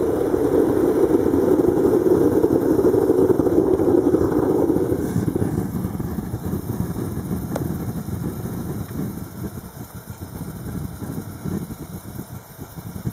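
Homemade diesel atomizer burner firing into a small bucket furnace: a loud, steady roar of the compressed-air spray flame for about five seconds, which then drops away to a lower, uneven rumble.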